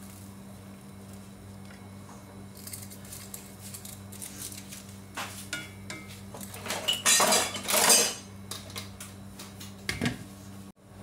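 Wooden spatula stirring and scraping in a pan of simmering broth and noodles, with small knocks and a louder clattering stretch about seven seconds in. Near the end a glass lid is set on the pan with a short knock, over a steady low hum.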